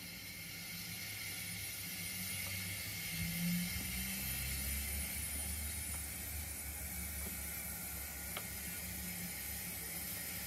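0 gauge model locomotive running slowly along the track, its electric motor and gears giving a low steady whir that grows louder over the first few seconds, with a steady hiss above it and a faint click near the end.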